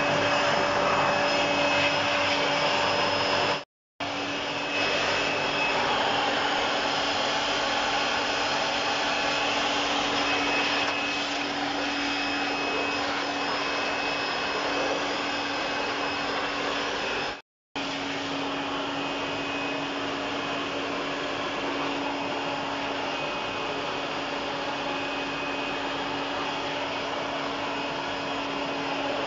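Electric air blower running steadily, a steady rush of air with a low hum and a faint high tone, blowing clogged dust out of an air curtain's blower wheels. It cuts out twice, briefly.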